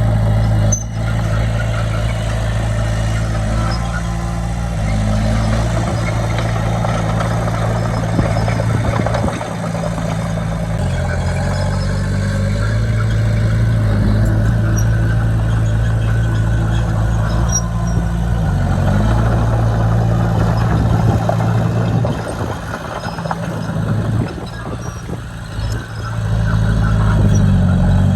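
Diesel engine of earth-moving equipment running under varying load, its pitch shifting up and down several times, with a quieter stretch about three-quarters of the way through.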